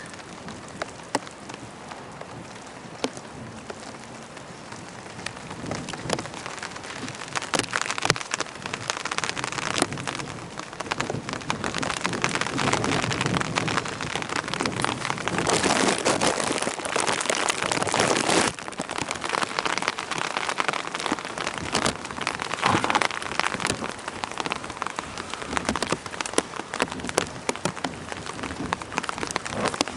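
Heavy rain from a thunderstorm falling onto hard surfaces, with individual drops ticking sharply through a steady wash. It grows heavier past the first quarter, peaks in a downpour around the middle, then eases off.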